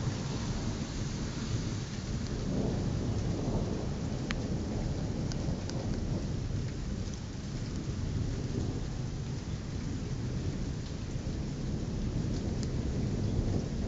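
Night thunderstorm: heavy rain falling steadily under a continuous low rumble of thunder, with a few faint sharp ticks of drops striking something hard.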